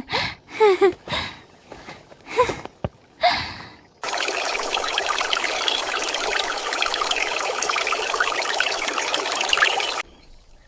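Water running steadily in a dense, even stream for about six seconds. It starts abruptly about four seconds in and cuts off suddenly. Before it come a few short voice-like sounds without words.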